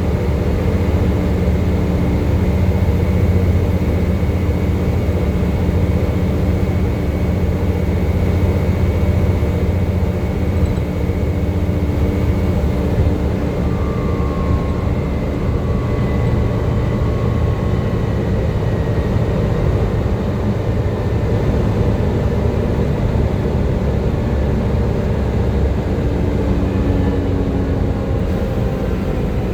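Volvo B7TL double-decker bus's diesel engine running under way, with its 'hoover' whine drifting slowly down in pitch midway. The pitch rises near the end as the bus picks up speed.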